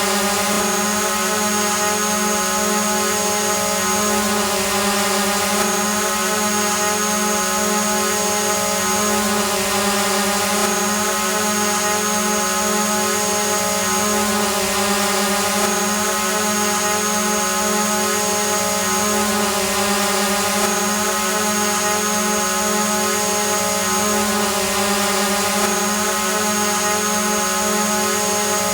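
Multirotor drone hovering: a steady propeller and motor hum at constant pitch, with a thin high whine that breaks off briefly about every five seconds.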